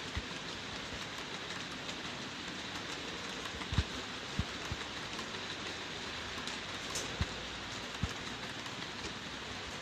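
Freight train rolling past: a steady hiss of wheels on rail with a few irregular low thumps.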